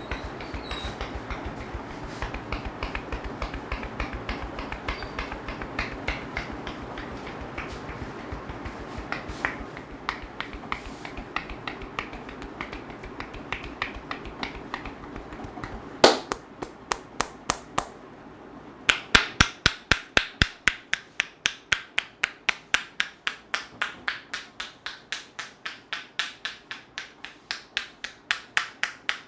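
Barber's hands striking a customer's head in quick, rhythmic taps during an Indian head massage, a sharp clapping-clicking sound. The first half has lighter, less regular taps over a steady background hiss. After one loud slap about halfway, the strikes come louder and even, about three to four a second.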